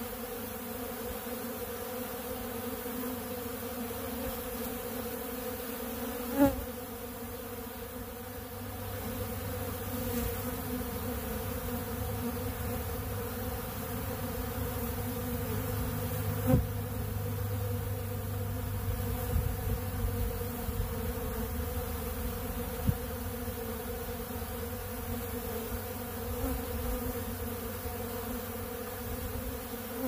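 A swarm of honeybees buzzing steadily as they fly around and feed at an open pollen feeder, a continuous droning hum with a few brief louder blips.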